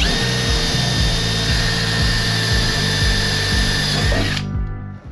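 Cordless drill running at steady speed with a high whine, drilling into the van's sheet-metal floor, then stopping about four and a half seconds in. Background music with a steady beat plays underneath.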